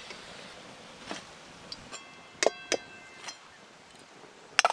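Hot oil sizzling in a steel wok as deep-fried koftas are lifted out with a slotted steel spoon, with several clinks of metal on metal; one clink, about two and a half seconds in, rings briefly.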